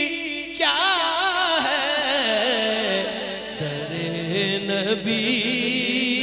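A man singing a naat into a microphone: a long, drawn-out melismatic phrase with heavily wavering pitch. The voice leaps up sharply about half a second in, then winds slowly downward.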